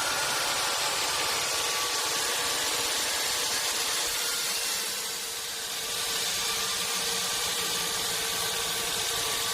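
Sawmill machinery running steadily: a continuous hiss over a steady hum, easing a little midway.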